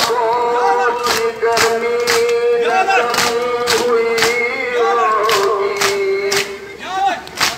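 Shia mourners' matam: men chanting a noha in long held notes, over rhythmic open-hand strikes on their chests at about two a second.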